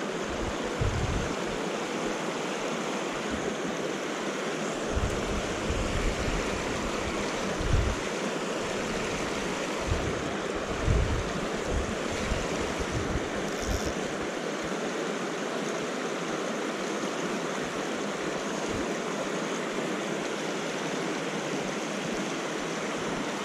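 Shallow, fast moorland stream rushing steadily over rocks and small falls, with a few brief low thumps on the microphone.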